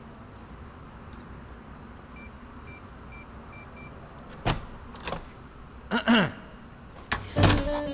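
Five short, even electronic beeps of a digital door-lock keypad as a code is entered, followed by a couple of sharp clicks and a short sliding sound as the lock releases and the door opens. Music comes in near the end.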